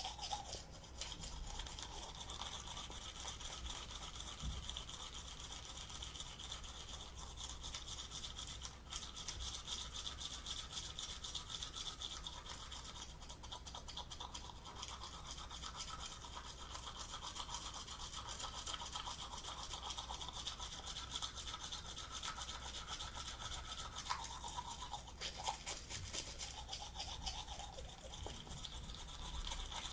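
Teeth being brushed with a toothbrush: continuous, rapid scrubbing strokes that keep up steadily throughout.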